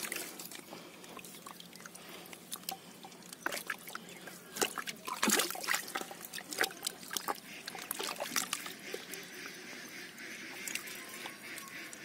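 Hands sloshing and squelching in a muddy, water-filled hole while groping for an eel, with irregular splashes, drips and trickles of water. The splashing is busiest about halfway through.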